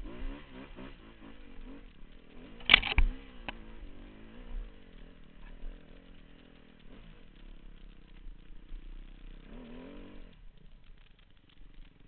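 2009 Husqvarna TXC 250 dirt bike engine revving up and down while riding a rough trail, with a loud sharp clattering knock about three seconds in. The revs climb once more near the end, then the engine drops away to a low murmur.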